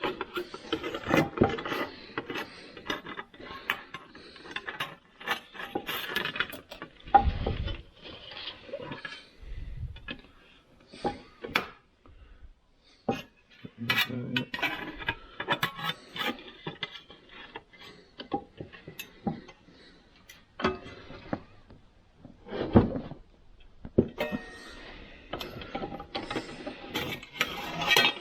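Sheet steel being worked by hand at a bench vise with pliers: irregular clicks, clanks and scraping of metal and tools as the panel is clamped and bent, with a couple of low thuds partway through.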